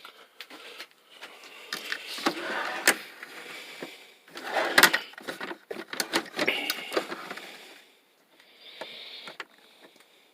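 Metal tool chest drawers sliding on their runners, with clicks and the clink of tools shifting inside, loudest about halfway through.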